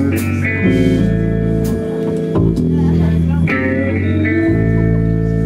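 Live band playing an instrumental intro: chords held over a walking bass line from an upright double bass and electric guitar, with a few light drum hits.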